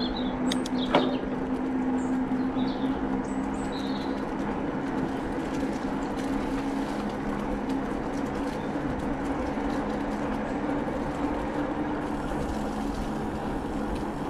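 Steady rushing noise of a bicycle being ridden along a path, tyre and wind noise on a handlebar or body-mounted camera, with a low steady hum. A few bird chirps come through in the first few seconds.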